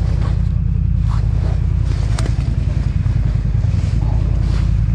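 ATV engine running steadily as the quad rides over rough ground, with a few sharp knocks and rattles from the machine.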